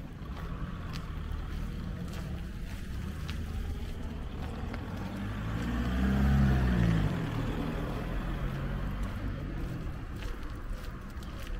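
Street traffic: a car drives past about six seconds in, its engine and tyre noise swelling to a peak and falling in pitch as it fades, over a steady low rumble of traffic.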